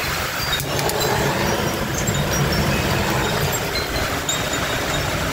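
Heavy rain falling steadily, a constant hiss with a low rumble underneath and scattered small drip ticks.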